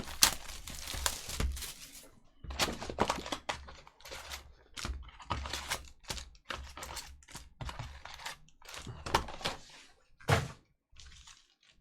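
Table-top handling noise: an irregular run of clicks, taps and thunks as trading cards, packs and boxes are handled.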